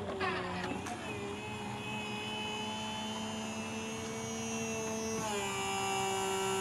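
Electric hydraulic pump of a BMW E38's power trunk lid running as it drives the lid open. It gives a steady whine that settles just after it starts and drops slightly in pitch about five seconds in. The freshly rebuilt and refilled pump is working normally.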